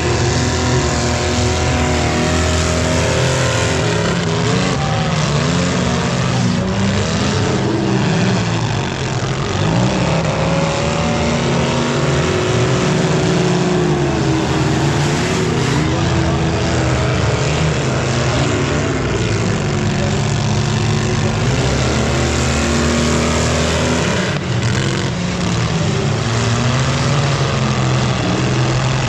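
Several junk cars racing on a dirt track, their engines running and revving together with overlapping pitches that rise and fall continuously.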